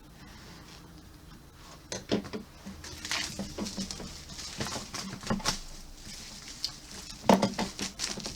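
Cardboard snack box being handled and cut open: scattered scratches, taps and rustles begin about two seconds in, with a sharper tap near the end.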